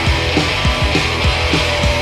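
Rock band playing live: electric guitar, bass guitar and drums in an instrumental passage, with sustained chords over a fast, steady drum beat.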